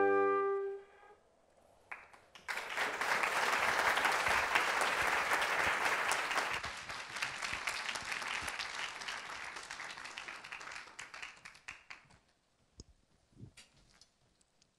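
The held final chord of a trio of two flutes and a bassoon cuts off just after the start; after a second or two of quiet, the audience applauds for about ten seconds, the clapping thinning and fading out. A few light knocks follow as it dies away.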